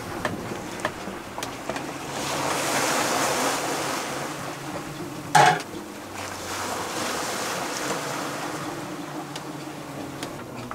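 Sea water washing and rushing along a sailboat's hull under way, swelling twice, with scattered small clicks and one short, loud knock about five seconds in.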